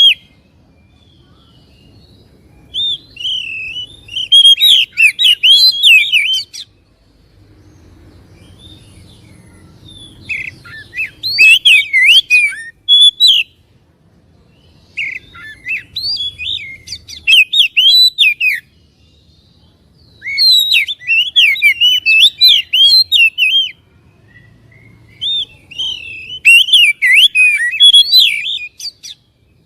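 Oriental magpie-robin (kacer) singing loud, rapid, varied whistled song in phrases a few seconds long with short pauses between them, about five phrases in all. This is a lure song of the kind played to provoke a caged male magpie-robin into singing and fanning its tail.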